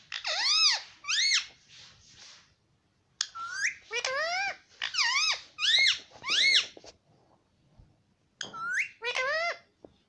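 Indian ringneck parakeet vocalizing in short, high, rising-and-falling syllables, in three bursts with pauses between, mimicking talk.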